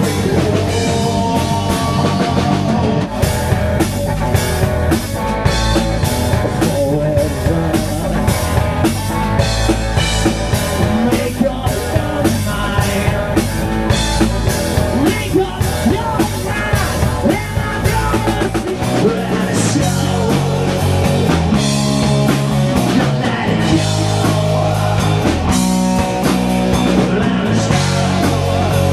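Rock band playing: electric guitars, bass, drum kit and a singer, with steady drum hits and a bass riff that changes about two-thirds of the way through.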